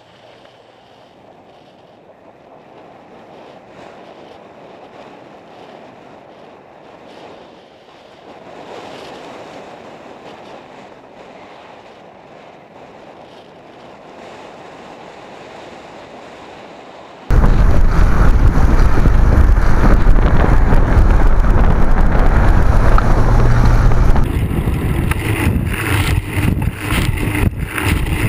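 Riding noise picked up by a bicycle-mounted camera: a quiet, even rush of road and traffic noise, then, a little past halfway, loud wind buffeting the microphone that starts suddenly.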